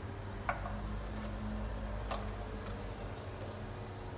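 Butter and sliced garlic starting to heat in a pot on a gas burner, giving a couple of sharp spits, about half a second and two seconds in, over a steady low hum.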